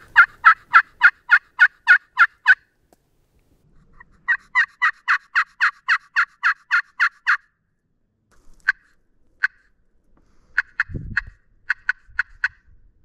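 A turkey call worked in two long runs of evenly spaced yelps, about four a second, followed by a few sparse single clucks: a hunter calling to draw a gobble from a tom turkey. A brief low rustle comes near the end.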